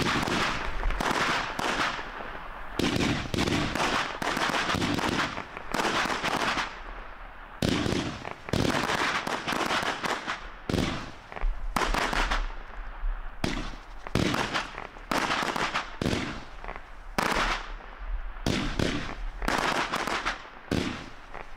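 Pulse Pounder 200-gram consumer fireworks cake firing its shots of flaming balls with reports: a steady string of sharp bangs, about one to two a second.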